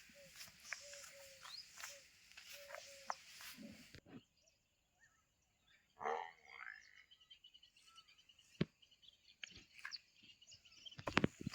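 Short animal calls repeating about twice a second, then, after an abrupt change, scattered clicks, one brief louder call and a cluster of sharp knocks near the end.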